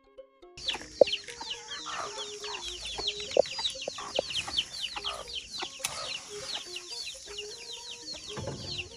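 Chickens clucking around a farmyard, with a dense run of short, high, falling chirps, many each second. A few plucked music notes play for the first half second.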